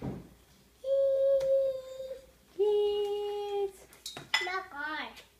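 A toddler's voice making two long held notes, the second lower than the first, then a short wavering call near the end.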